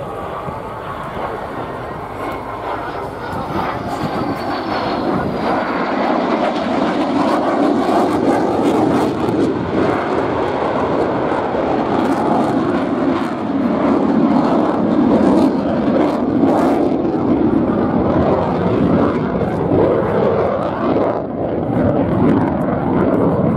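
Jet engine noise from a CF-18 Hornet's twin turbofans in a flying display. The noise grows louder over the first several seconds as the jet comes closer, with a faint whine falling in pitch, then stays loud with a ragged crackle.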